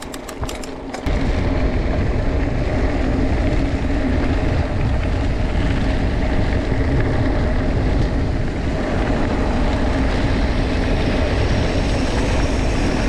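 Mountain bike riding at speed: wind buffeting the microphone and the tyres humming and rumbling on the track. A few sharp clicks come in the first second, then the rush of wind starts suddenly and holds steady.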